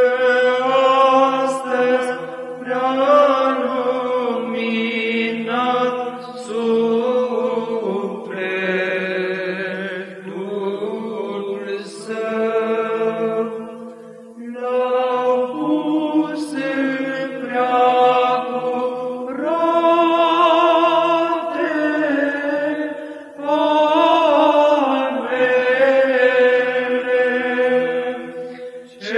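Male monastic choir singing Byzantine psaltic chant in the fifth tone: a melody line with vibrato moving over a steady held drone (ison), in phrases with short breaths between them.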